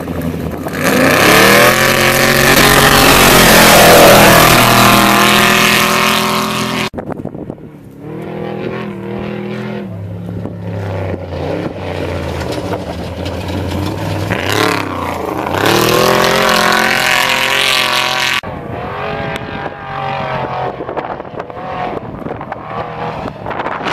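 Off-road race vehicles' engines revving and passing, in several cut-together stretches: a loud pass over the first seven seconds, a quieter stretch, then another rising and falling pass around fifteen to eighteen seconds in. The sound changes abruptly about seven and eighteen seconds in.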